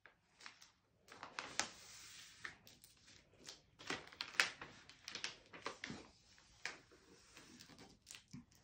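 Large sheet of taped-together paper rustling as it is folded and the crease pressed flat by hand, in short irregular swishes and crinkles, the loudest about four seconds in.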